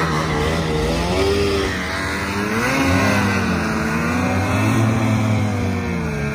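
Snowmobile engine revving under load, its pitch rising and falling as a Lynx Boondocker pulls a disabled sled on a tow rope through deep powder.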